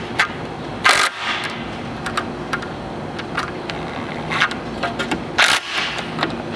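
Cordless drill-driver with a 5/32 hex bit tightening the bolts of a roof-rack wind fairing: the motor runs in short spells, with sharp clicks and a few sudden rasping bursts about a second in and again around four and a half and five and a half seconds.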